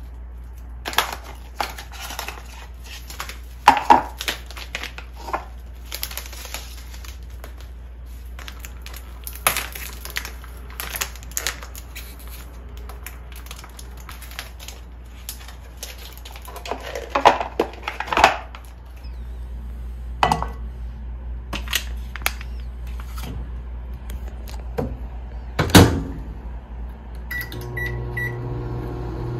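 Scattered knocks, clicks and clatter of objects being handled over a steady low hum. Near the end, three quick beeps, then an appliance starts to hum steadily.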